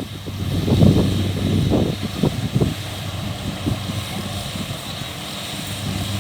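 Kubota DC-70 combine harvester's diesel engine running steadily, with some uneven rumbling over it in the first few seconds.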